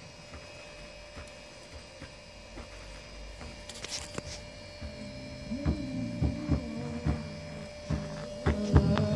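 Electrical hum from a speaker driven by an MA Audio 5-channel car amplifier: a steady buzzing tone. From about five seconds in it is joined by a lower buzz and a series of sharp crackles and pops that grow louder toward the end.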